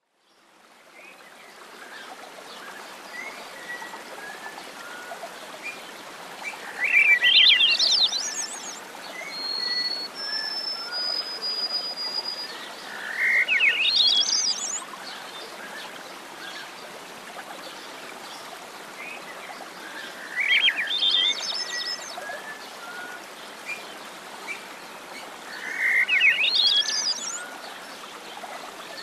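Birdsong over a steady background hiss: one bird repeats a loud, fast-trilled phrase that rises steeply in pitch, four times about six seconds apart, while other birds give short high chirps and whistles in between.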